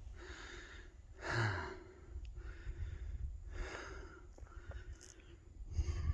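A hiker breathing hard on a climb: about six loud breaths in and out, roughly one a second, the loudest about a second and a half in, over a low rumble on the microphone.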